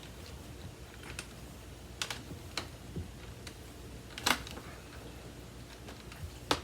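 Scattered sharp plastic clicks and knocks from handling and fitting parts of a Samsung CycloneForce upright vacuum. The loudest is a short clatter about four seconds in, with another sharp click near the end.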